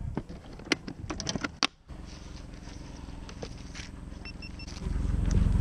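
Hard plastic clicks and knocks as the kayak's livewell lid and deck gear are handled, stopping abruptly. A steady low rumble follows, with three short electronic beeps, and the rumble gets louder near the end.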